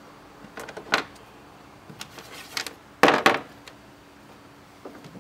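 Irregular knocks and clatters of hands, tools and mounting hardware against a plastic kayak hull, the loudest about three seconds in.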